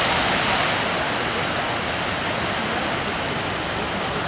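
Steady rushing noise of open sea water and wind, easing slightly after about a second.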